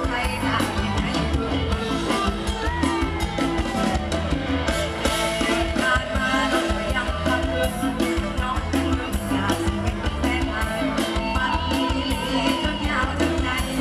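Live Isan mor lam band music over loudspeakers: a woman sings the melody into a microphone over a drum kit and guitars playing a steady, even beat.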